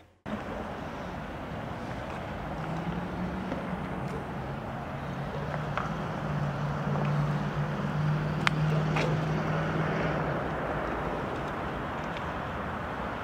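Outdoor street ambience with a vehicle's low engine hum that builds a couple of seconds in and fades out past the middle. Two sharp clicks come about half a second apart while the engine is loudest.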